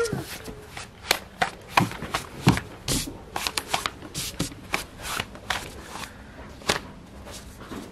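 Hands slapping and flipping a thin, floured pizza dough base, an irregular run of sharp slaps about two a second.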